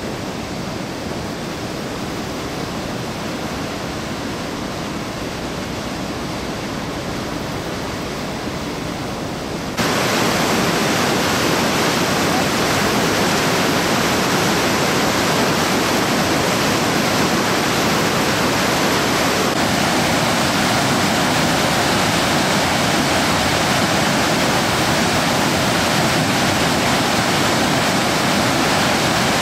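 Flash-flood water rushing steadily, a continuous roar of fast water. It jumps louder and brighter suddenly about ten seconds in, then holds steady.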